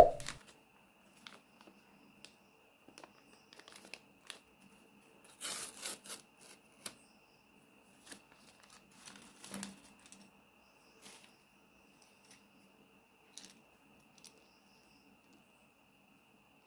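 A paper surprise packet being handled and torn open by hand: a sharp knock at the very start, then scattered small crinkles, with two short bursts of paper rustling and tearing about five and a half and nine and a half seconds in.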